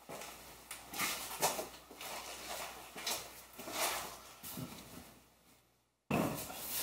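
Faint, scattered rustling and soft knocks of a rear seat-bottom cushion being worked loose from its clips. The sound drops out completely for about a second near the end.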